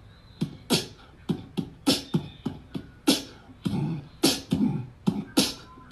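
Rhythmic beatbox-style percussion: sharp hits, each with a low thump and a bright crisp top, about two to three a second.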